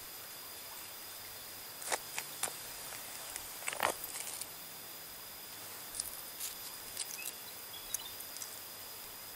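Scattered rustles and crackles of dry leaf litter and foliage being disturbed, several short ones a second or so apart, the loudest about four seconds in. A steady faint high whine runs underneath.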